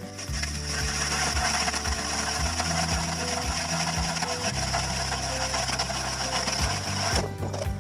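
Power ice auger drilling a fishing hole through the ice: a steady motor whine with cutting noise that stops abruptly about seven seconds in.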